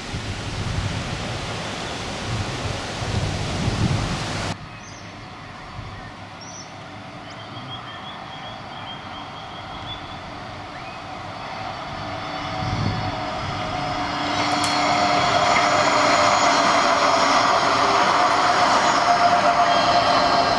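A Gold Coast G:link Bombardier Flexity 2 electric tram approaching and passing, growing louder from about twelve seconds in: a steady run of wheel and motor noise with high whining tones. Before it, wind noise on the microphone stops abruptly about four seconds in.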